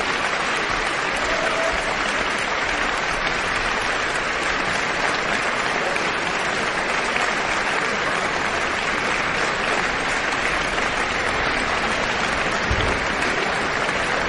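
Concert audience applauding steadily, a sustained ovation at the end of an orchestral piece.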